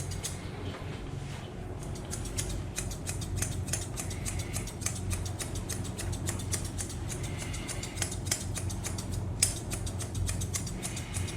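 Grooming scissors snipping a Pomeranian's coat in quick, repeated cuts over a steady low hum.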